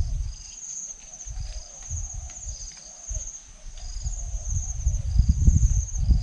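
Insects trilling in high, pulsing phrases that repeat about once a second, over an irregular low rumble of wind on the microphone that swells about five seconds in.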